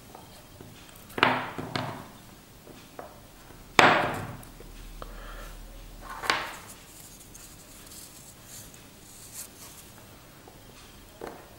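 Knocks of a steel watch case and hands against a wooden tabletop while a canvas strap is taken off the watch: five knocks, the loudest about four seconds in, with quieter taps between.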